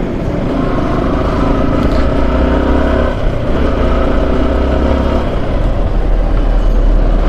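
Motorcycle engine running on the move, with a steady hum of even tones over a strong low rumble.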